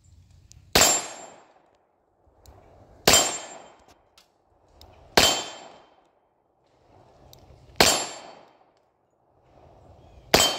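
Five single shots from a Remington 1911 .45 ACP pistol, fired about two to two and a half seconds apart, each sharp crack trailing off over roughly half a second.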